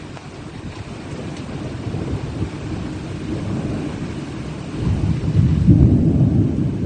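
Heavy downpour with rushing storm water, a deep rumbling noise that builds and is loudest about five to seven seconds in.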